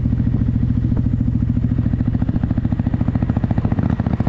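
Motorcycle engine running at a steady cruising speed, its exhaust pulsing evenly, with a brief dip in level near the end.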